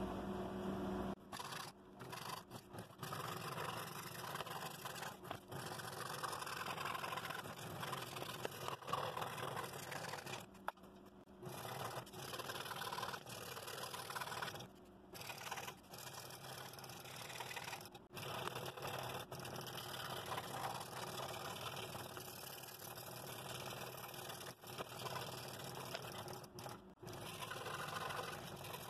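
Scroll saw running with a number 5 blade, the blade sawing steadily through a 1/4-inch poplar board while interior fretwork is cut. The sound breaks off briefly several times.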